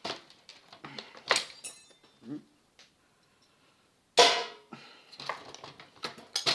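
Clicks and clatter of tools and small metal parts being handled on a work surface, with a short metallic ring about a second in and a loud clatter about four seconds in after a brief quiet pause.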